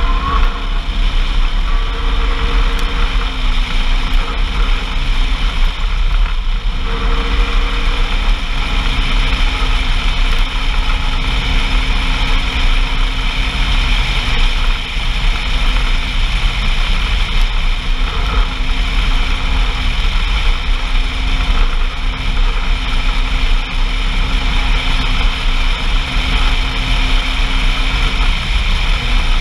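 Off-road vehicle engine running steadily while under way, heard on board over a constant rush of noise. The engine note dips briefly a few times and then holds again.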